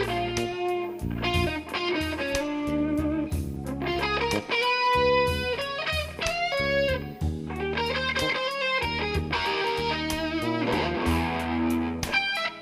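Jazz-blues band music with an electric guitar playing a lead line of quick single notes, over bass and drums.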